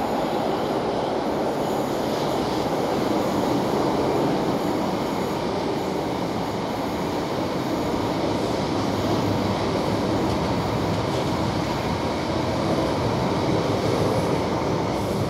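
South Western Railway Desiro electric multiple unit running past at close range: the steady noise of its wheels on the rails, holding level as the carriages go by.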